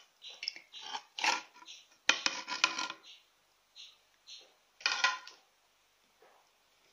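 A plate clattering and clinking against an earthenware pot as cut sardine pieces are tipped in: a quick run of knocks about two seconds in, and another knock near five seconds. Short high chirps come in the gaps.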